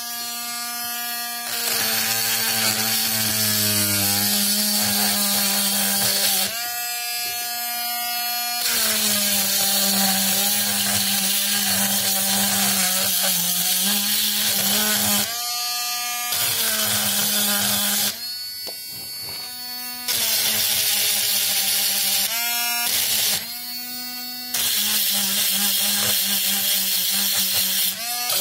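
Mini rotary grinder with a pink grinding stone grinding rust off the steel of a pair of pliers, its motor whining steadily. Several times the sound switches between a clear whine and a louder, harsher rasp as the stone bears on the metal, and the pitch sags a little under load.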